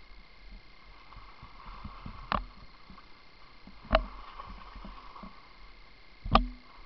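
Skis sliding over packed snow, a steady low hiss heard through an action camera, broken by three sharp knocks about two, four and six seconds in.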